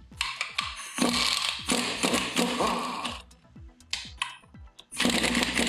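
Socket ratchet clicking rapidly in two long runs, working the 9/16 bolts out of a centrifugal pump's front housing.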